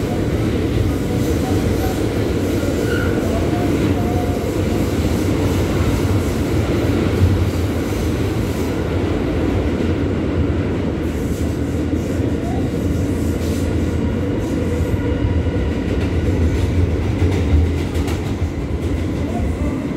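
New York City L train subway car running at speed, heard from inside the car: a steady rumble of wheels on the rails.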